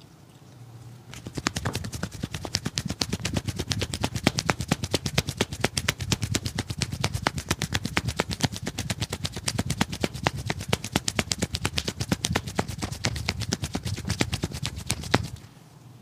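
Barber's hands rapidly tapping and slapping the customer's head in a percussive head massage. It is a fast, even run of sharp smacks, several a second, that starts about a second in and stops just before the end.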